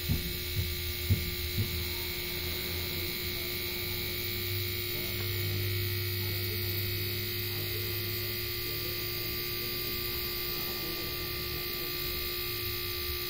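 A small electric motor hums steadily while pressurising a car's air-conditioning system through the gauge manifold, pumping it up towards 300 for a leak test after the compressor and condenser were replaced. A few light knocks sound in the first two seconds.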